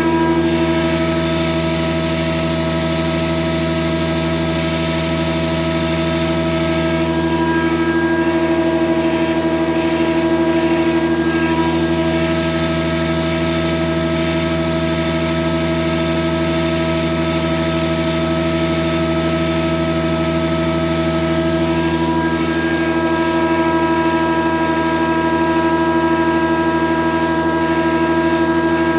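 Holzmann HOB 400V planer-thicknesser's feed motor and gearbox running at a constant speed, a steady whine of several held tones over a hiss. The owner takes the gearbox to be damaged.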